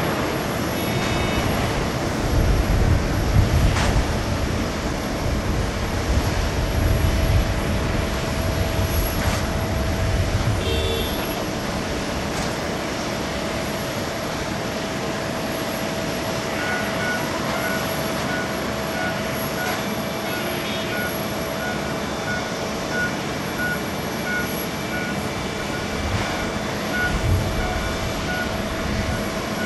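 Boeing 747-8 jet airliner rolling out after landing. A heavy, low engine rumble runs for the first ten seconds or so, then eases to a steady hum with a held tone. From about halfway through, a short electronic beep repeats about one and a half times a second.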